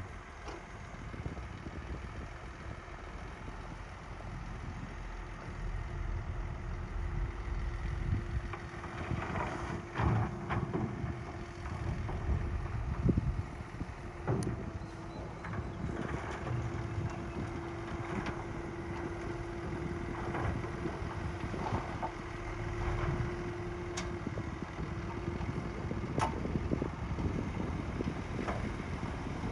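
Heavy diesel earthmoving machinery running, a bulldozer or dump truck: a steady low engine rumble, a steady whine through the middle, and several sharp clanks and knocks.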